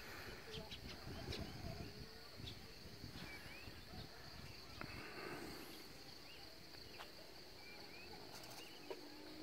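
Outdoor morning ambience: a steady high-pitched insect drone, with scattered short bird chirps over it.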